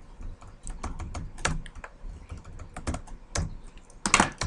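Computer keyboard keys being pressed in an irregular run of clicks while lines of code are deleted, with a couple of louder key strokes about four seconds in.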